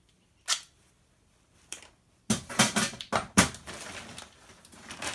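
Woven polyethylene tarp being picked up and handled, crackling and rustling in a quick run of loud crinkles a little over two seconds in, then rustling more softly. Two brief sharp clicks come before it.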